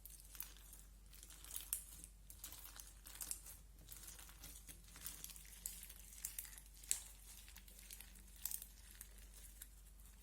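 Crunchy 'crispy' slime being worked, giving dense, irregular crisp crackles and small pops.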